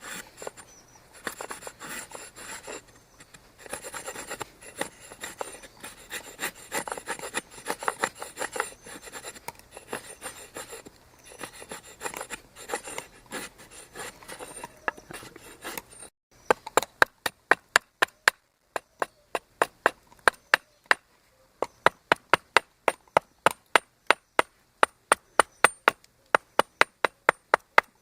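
Hand tool working a sycamore handle blank: rapid scraping and shaving strokes on the wood, then, from about two thirds in, quick sharp chopping strikes on the wood, about four a second, pausing briefly in the middle.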